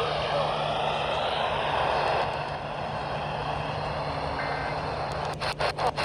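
Radio static hissing from a weakly received station, with a steady low hum underneath. Near the end the static starts cutting in and out rapidly, about five times a second.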